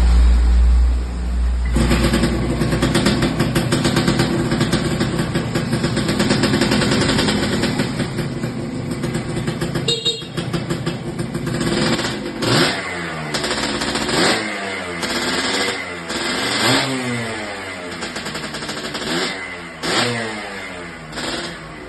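A vehicle engine running steadily, then revved in several short throttle blips, each rising and falling in pitch, during the second half.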